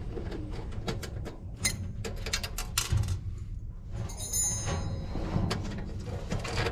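Wrench and socket clicking and clinking against the metal nuts and brackets of an electric sauna stove as the nuts are loosened, with a brief high metallic ring about four seconds in, over a steady low hum.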